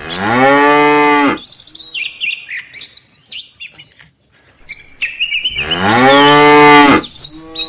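Domestic cattle mooing: two long moos, one right at the start and another about five and a half seconds in, each rising and then falling in pitch. Birds chirp faintly in between.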